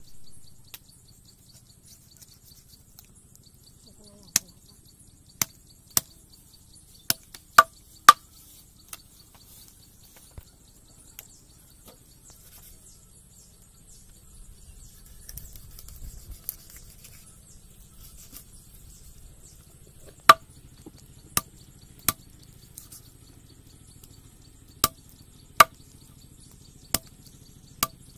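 A large steel knife chopping raw chicken into pieces on a wooden log: about a dozen sharp chops in irregular groups, each with a brief ring from the blade, and a quiet stretch in the middle.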